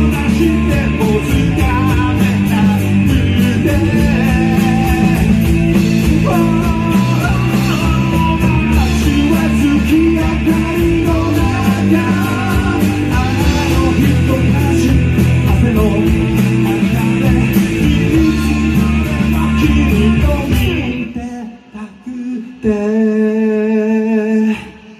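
Live rock band playing a song: strummed acoustic guitar, electric guitar and drums, with a sung vocal. About twenty seconds in, the band stops together, and near the end a single held note rings for about two seconds.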